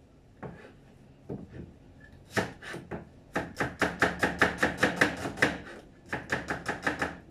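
Cleaver chopping onion on a cutting board: a few single strokes, then quick runs of about five chops a second, with a short pause before the last run.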